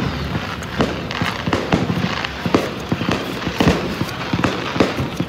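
Aerial fireworks bursting overhead: an irregular run of sharp bangs and crackles, several a second.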